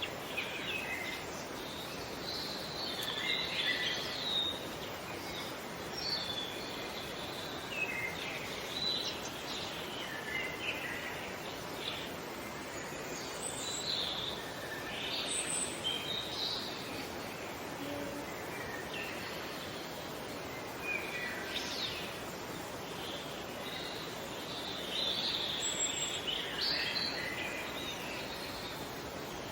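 Various birds chirping and calling over a steady background hiss of outdoor ambience, in short clusters of calls every few seconds.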